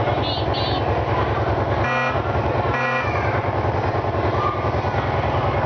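Recorded boat sounds from an exhibit's button panel: a steady, low, pulsing engine rumble, with two short horn toots about two and three seconds in.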